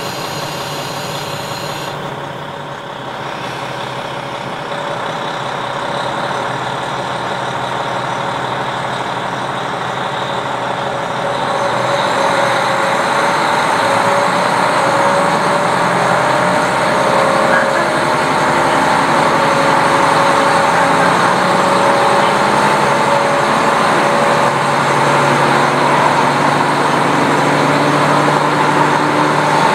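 KiHa 40 diesel railcar running with the window open: the diesel engine and wheel-on-rail noise get steadily louder as the railcar works harder. A brief high-pitched tone sounds in the first two seconds.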